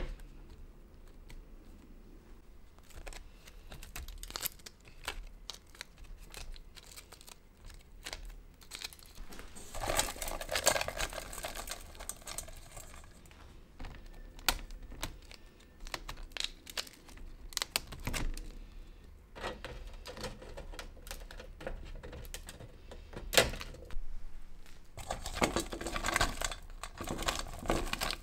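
Dried wild-pear slices being picked off a wire drying rack and handled by hand: dry crinkling and rustling with many light taps and clicks. The crinkling swells into two longer bursts, about ten seconds in and again near the end.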